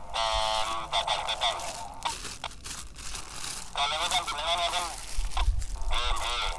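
Voices received over a Baofeng UV-B2 Plus handheld transceiver and heard through its small speaker, thin and nasal with no low end. They come in three short spells with gaps between, and there is some plastic bag rustling.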